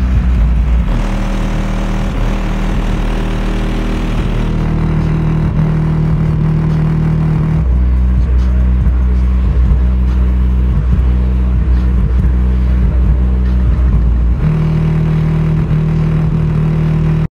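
Bass-heavy hip-hop music played very loud through an Alpine Type R 12-inch subwoofer in a T-line enclosure. Deep bass notes dominate, and the bass line shifts between a very low note and a somewhat higher one every few seconds.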